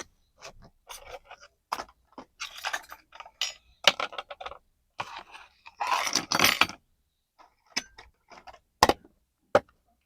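Pieces of a plastic toy kitchen set and their packaging being handled: irregular clicks, rattles and crinkling, with two sharp clicks near the end.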